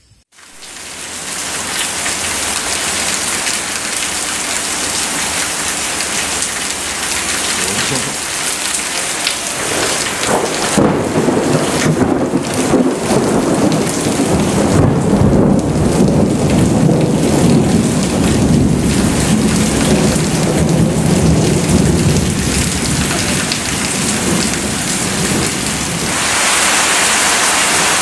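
Heavy tropical rain pouring down in a thunderstorm. From about ten seconds in, a long roll of thunder rumbles for some twelve seconds. Near the end the rain settles into an even, louder hiss.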